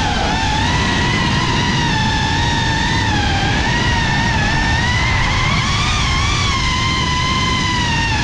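FPV racing quadcopter's brushless motors and propellers whining in flight, one high whine whose pitch wavers up and down, over a low rumble.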